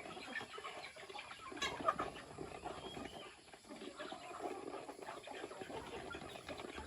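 Chickens clucking softly, with scattered small clicks and a brief sharp sound about one and a half seconds in.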